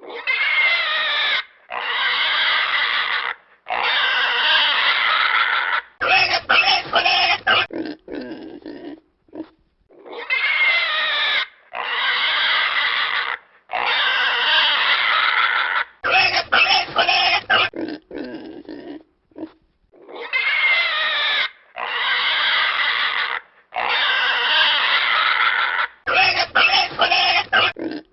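A pig squealing: three long, high-pitched squeals of about two seconds each, then a run of short, choppy squeals and some lower grunts. The same sequence repeats about every ten seconds, three times over.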